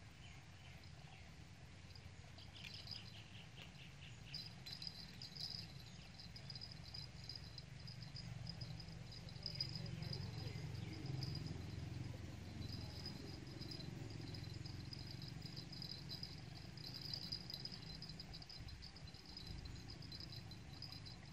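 Insects chirping in a fast, high, pulsing trill with short breaks, over a low steady rumble.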